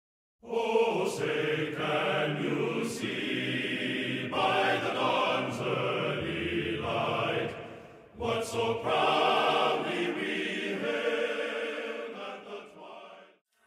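Choral music with voices singing together, briefly dropping out about eight seconds in and fading out near the end.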